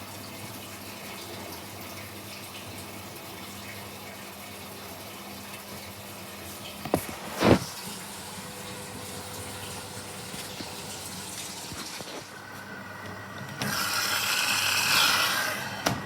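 Washing machine taking in water: a steady rush of water over a low machine hum. Two sharp knocks come about seven seconds in, and a louder gush of water swells near the end and then cuts off.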